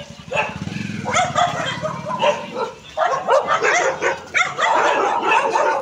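Several street dogs barking at once in overlapping barks, the barking becoming denser and almost continuous about three seconds in.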